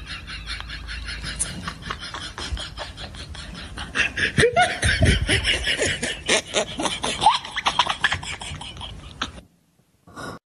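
People laughing over a quick run of clicks or taps, the laughter growing louder with higher squeals about four seconds in, then cutting off about a second before the end.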